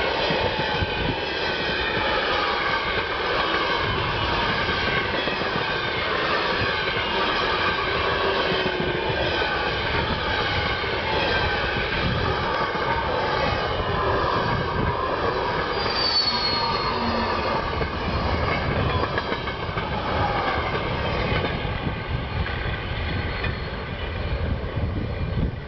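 Freight train wagons rolling past at speed: a steady rush and rumble of wheels on rail, with several high, steady ringing tones from the wheels. A brief high whistle comes about two-thirds of the way through, and the sound eases slightly near the end as the last wagons pass.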